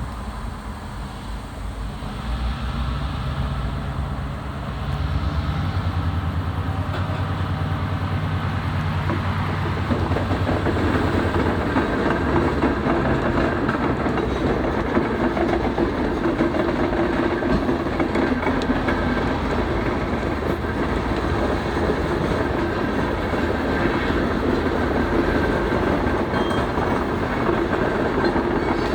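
New York & Atlantic freight train passing. A diesel locomotive's low engine drone comes first. About ten seconds in it gives way to freight cars rolling by with a steady clickety-clack of wheels over rail joints.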